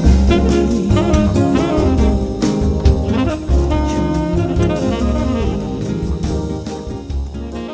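Jazz background music with saxophone and drums, slowly getting quieter.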